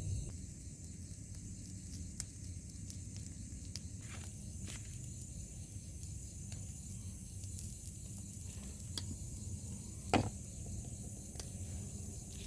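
Steady background hiss and low rumble, with scattered light rustles and clicks; the sharpest click comes about ten seconds in.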